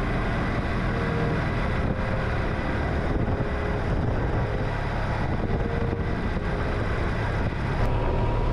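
BMW R1200C's boxer twin engine running steadily while the motorcycle rides along the road, picked up close to the front exhaust header, with wind and road noise over it.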